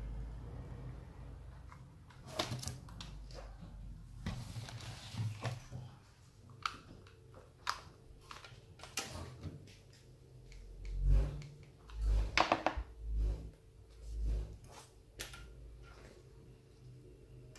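Scattered clicks, taps and knocks from handling a hot glue gun and a decorated craft container on a table, with a few louder dull thumps between about eleven and fifteen seconds in.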